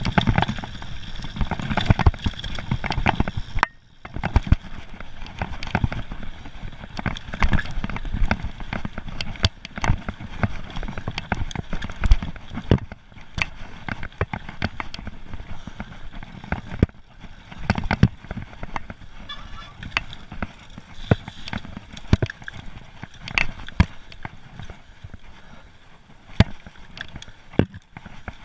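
Mountain bike clattering and rattling over a loose rocky trail, heard through a handlebar-mounted camera, with a steady rumble of wind on the microphone and frequent sharp knocks from stones and the bike.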